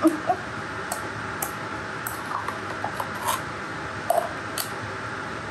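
A spoon scraping thick tartar sauce out of a plastic food-chopper bowl: a handful of light clicks and ticks against the plastic, with soft squishing of the sauce.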